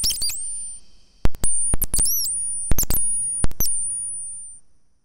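Synthesized bird chirps from a Serge Triple Waveshaper bird patch on a 5U modular synthesizer, its envelopes fired by a random gate. Irregular clusters of quick, very high chirps sweep up and down, and a thin high tone lingers and fades after each cluster.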